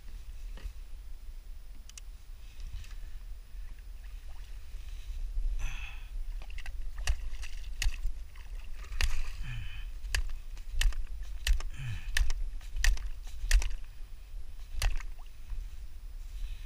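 Wind rumbling on the microphone out on a kayak, with a run of sharp knocks and clicks starting about six seconds in and going on for most of the rest.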